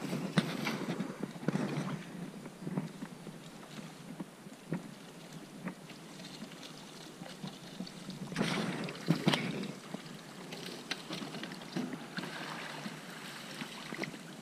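Water sloshing and splashing as a large rusted metal road sign is dragged out of the river to the bank, with scattered knocks and scrapes. The loudest splashing comes about eight seconds in.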